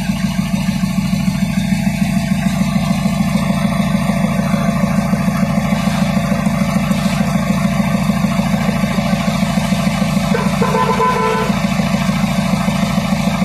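Isuzu Elf's 4HF1 four-cylinder diesel engine idling steadily, with a short faint high tone about ten and a half seconds in.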